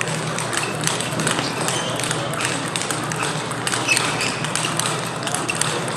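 Table tennis balls clicking off rackets and tables in quick, uneven succession, from rallies at several tables at once, over a steady low hum.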